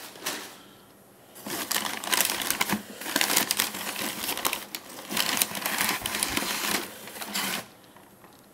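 Packing paper and a corrugated cardboard box being handled, with rustling and crinkling and small knocks, as a boxed model is worked out of the shipping carton. The handling runs from about a second in until shortly before the end.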